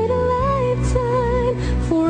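A woman singing a pop ballad over instrumental accompaniment, holding long notes with vibrato, with a couple of short breaks, and stepping down to a lower note near the end.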